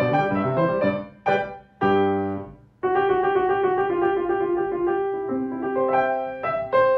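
Grand piano playing an excerpt from a sonata's recapitulation second theme: a few short phrases broken by brief pauses in the first three seconds, then a sustained, flowing passage.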